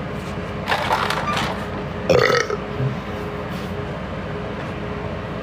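A man belching twice, a rough drawn-out belch about a second in and a shorter, pitched one about two seconds in, over a steady background hum.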